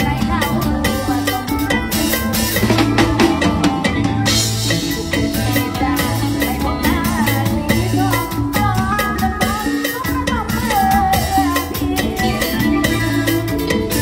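Mor lam band music played on a drum kit with bass and a bending melody line over a steady beat.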